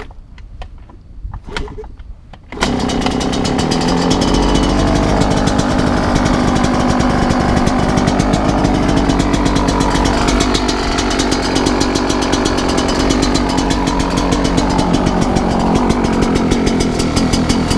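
A few light knocks, then about two and a half seconds in a 2019 Yamaha YZ125's 125 cc single-cylinder two-stroke engine catches and runs steadily with a fast, even beat, on its stock exhaust.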